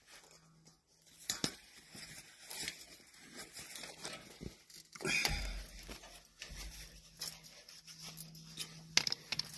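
Steel tie wire being twisted tight with pliers around ribbed rebar: a run of small scratchy scrapes and clicks of wire and pliers on the bar, with a dull bump about halfway through.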